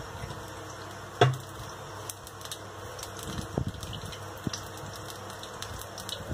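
Oil poured into a hot steel kadhai, with faint scattered ticks and crackles over a steady low hum. A sharp knock about a second in, with softer knocks later.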